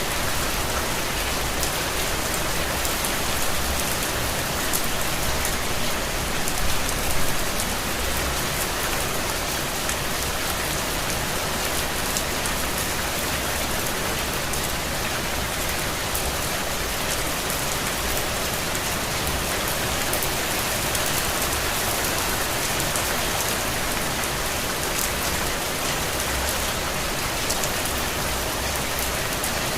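Steady heavy rain falling on a surface, a dense even hiss with many small drop ticks.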